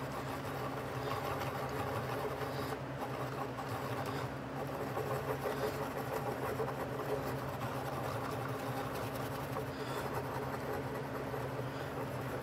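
A steady low machine hum with several fixed tones, over which comes the faint scraping of a screwdriver stirring two-part epoxy on cardboard.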